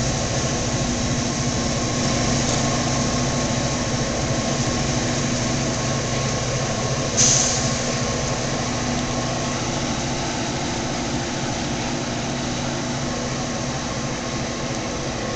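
CSX freight train's diesel locomotives working hard up a grade, a steady low engine drone, with a brief hiss about seven seconds in.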